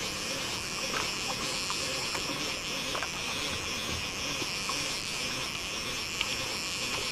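Overhead conventional fishing reel being cranked steadily, its gears giving a steady high whirr with a few faint ticks, as line is wound in under load from deep water.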